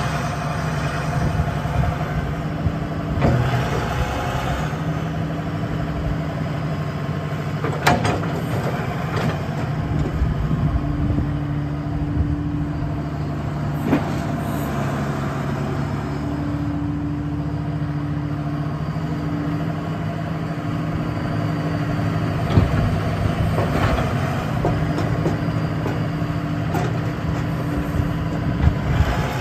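Case 888 excavator's diesel engine running steadily while the boom, stick and bucket are worked. A higher hydraulic tone comes and goes several times as the controls are moved, with a few sharp metal knocks.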